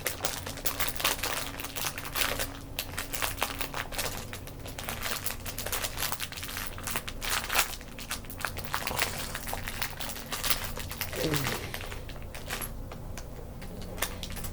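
Plastic packaging crinkling and small plastic Lego pieces clicking as they are handled and sorted, in a dense irregular run of crackles and clicks.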